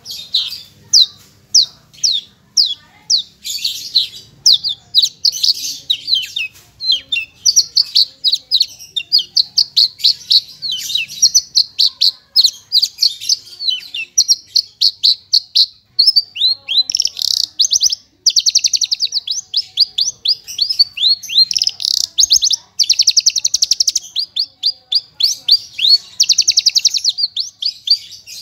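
Javan bush lark (branjangan, parva form) singing a continuous, high song of rapid downward-slurred notes, broken by fast rattling trills several times. It is the full, busy song that bird keepers use as a master recording to tutor other larks.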